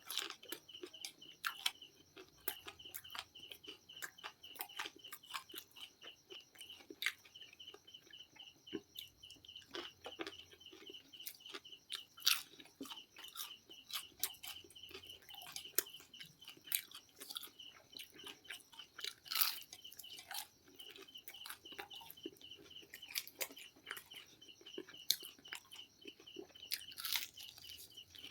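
Close-up crunching and chewing of crispy fried KFC chicken, with many sharp bites throughout. Behind it runs a high, rapid chirping that stops and starts in short runs.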